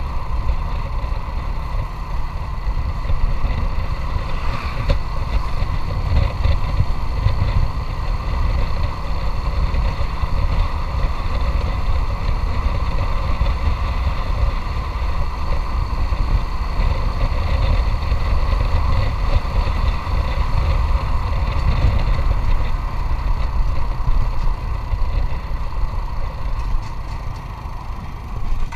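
Motorcycle engine running steadily while riding, over a heavy low rumble.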